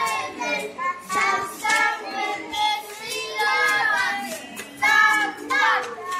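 Group of children singing a game song together, in a lively sing-song chant.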